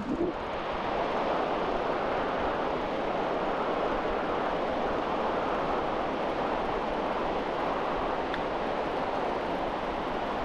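Steady, even rush of surf breaking along a shallow beach, mixed with wind.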